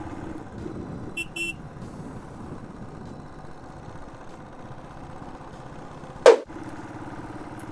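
Motorcycle running steadily on the road, with two short horn beeps about a second in and one sudden loud knock about six seconds in.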